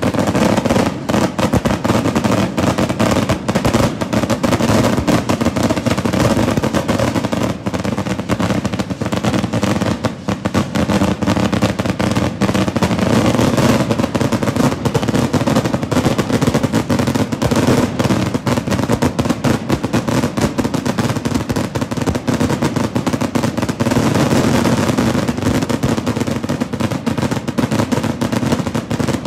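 Fireworks going off in a dense, unbroken barrage of rapid-fire bangs and crackling.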